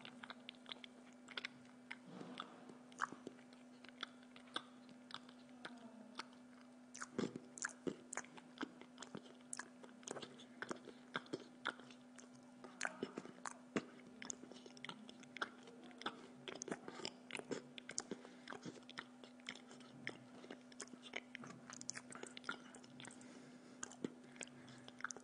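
A person eating spaghetti: chewing, with many small sharp clicks as the fork twirls on the plate, over a steady low hum.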